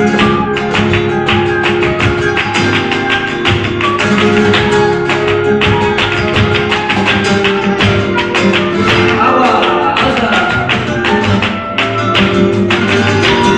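Live flamenco ensemble music: guitar and held melody notes over a dense, steady run of sharp percussive strikes.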